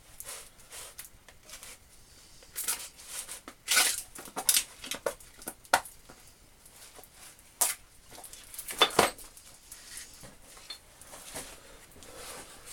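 Parcel being unwrapped by hand: packaging tape ripped and peeled off and the wrapping crinkled, in irregular short rips and rustles, with the loudest at about 4 and 9 seconds in.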